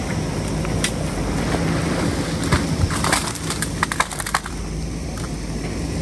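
JCB backhoe loader's diesel engine running steadily as its bucket works among river rocks, with a cluster of sharp knocks and clatters of stone about halfway through.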